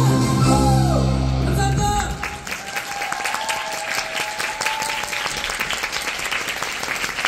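A performer singing into a microphone over accompanying music; the song ends about two seconds in and gives way to audience applause, with a held note lingering over the clapping for a few seconds.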